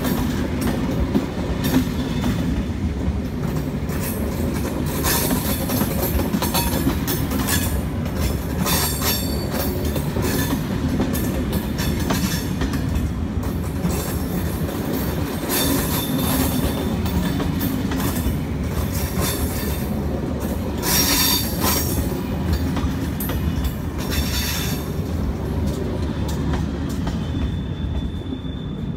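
SNCF Intercités Corail passenger coaches rolling past, their wheels clicking repeatedly over rail joints. The sound dies away near the end as the last coach clears.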